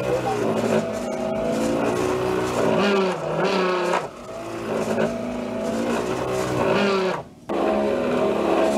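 Electric motor of a radio-controlled model boat spinning its propeller, running with a whine whose pitch rises and falls. It drops out briefly near the end.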